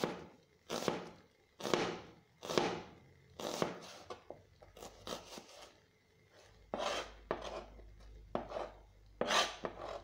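Chef's knife slicing a white onion into thin half-moons on a plastic cutting board: a crisp cut ending in a tap on the board roughly once a second, softer cuts through the middle, then a quicker run of cuts near the end.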